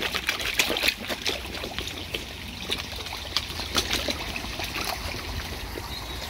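Koi carp feeding on pellets at the pond surface: many quick irregular splashes and smacks of the fish taking food, over the steady trickle of moving pond water.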